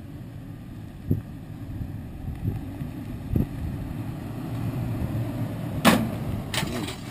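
Toyota 4Runner creeping up a rocky dirt trail, its engine running low and steady and growing slowly louder as it approaches, with faint knocks of tyres over rocks. A sharp knock about six seconds in.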